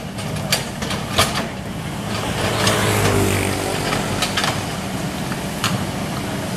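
Hydraulic excavator's diesel engine running, swelling and rising in pitch under load about two to four seconds in. A few sharp knocks, likely the bucket against stones, come through.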